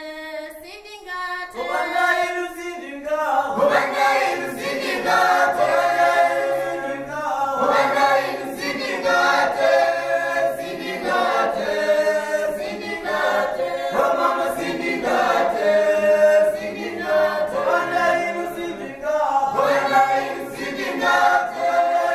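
Background music: a choir singing, growing louder over the first few seconds.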